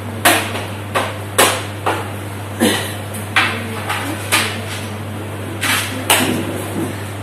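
A series of about ten sharp knocks at uneven intervals, each dying away quickly.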